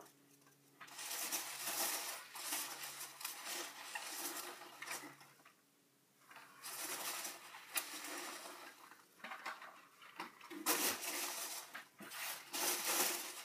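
Styrofoam packing peanuts and cardboard rustling as hands dig through a shipping box and lift out small boxes, in three stretches with a short pause about halfway.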